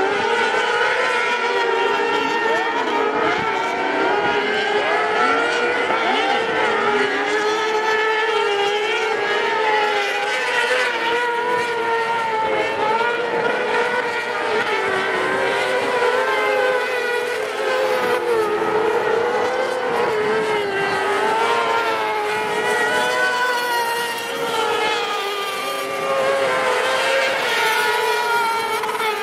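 Several kartcross buggies racing on a dirt track, their high-revving motorcycle engines running together, each pitch rising and falling as the drivers work the throttle.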